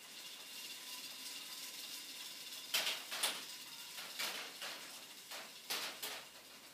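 K'Nex fruit machine mechanism running with a steady whirr, then a handful of sharp plastic clicks and clacks from about three seconds in.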